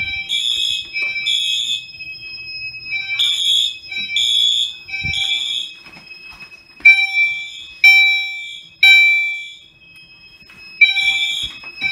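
Home fire alarm system in alarm after its pull station was pulled: horns sounding in the temporal-three pattern, three short high-pitched blasts then a pause, repeating. Partway through come several ringing tones that fade away.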